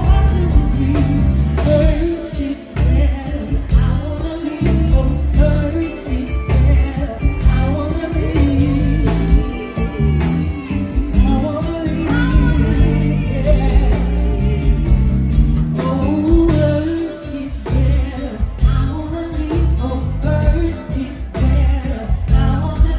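Live go-go band playing: a woman sings lead over bass guitar, drum kit and congas.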